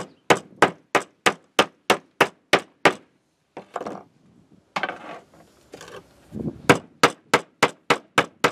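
Back of a hatchet head used as a hammer, striking a copper ground wire on a wooden workbench to pound it into a loop. The metal-on-metal blows come quickly, about three a second. A run of about ten blows is followed by a few seconds of softer handling noise and then another run of about seven.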